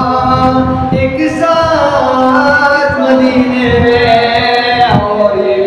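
A man singing a naat unaccompanied, holding long drawn-out notes that glide from one pitch to the next.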